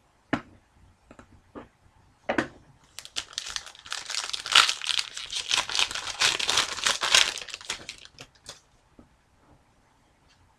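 A sealed trading card pack's wrapper being torn open and crinkled by hand, a few seconds of dense crackling, with a couple of sharp handling clicks before it.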